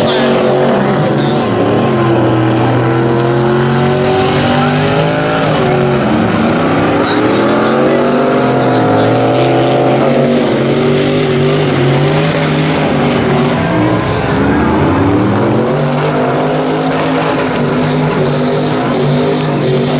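Pickup truck engine held at high revs during a burnout, its rear tyres spinning and smoking. The revs climb about six seconds in, drop sharply about ten seconds in, and climb again around fifteen seconds.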